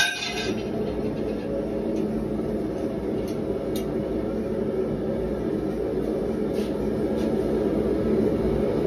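Propane forge burner running steadily. A single sharp metal clank with brief ringing comes right at the start.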